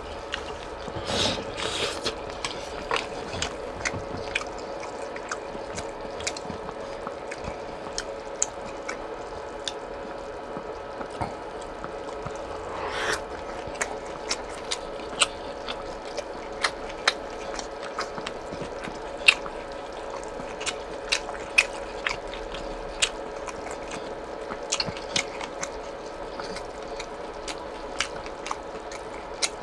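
Close-miked eating of boiled pork (suyuk): irregular wet mouth clicks and smacks of chewing, with a steady low hum beneath.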